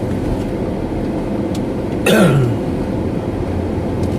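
Steady road and engine noise heard inside a moving car's cabin. About two seconds in, a short groan from the driver, falling in pitch.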